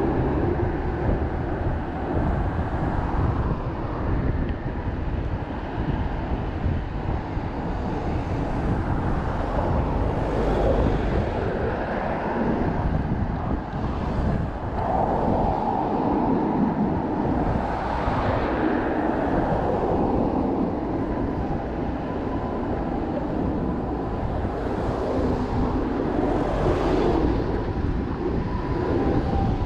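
Road traffic heard from a moving bicycle, with wind rumbling on the chest-mounted microphone; vehicles swell past several times. Near the end a siren starts up.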